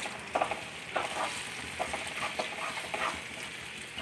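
Pickle masala gravy with vinegar sizzling in a kadai while a spatula stirs it, with soft, irregular scrapes against the pan through the steady sizzle.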